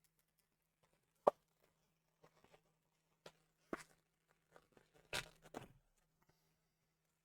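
Packaging of a card-game hero pack being handled and opened: a single sharp tap a little over a second in, then faint crinkling and rustling, busiest about five seconds in.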